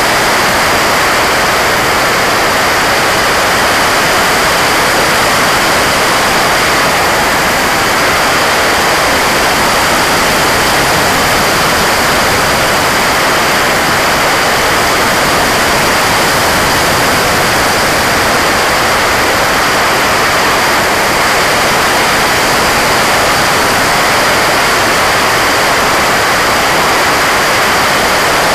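Steady rush of airflow and propeller noise from a Drone America Savant fixed-wing drone in flight, picked up by its onboard camera, holding even through a banking turn, with a faint steady high whine on top.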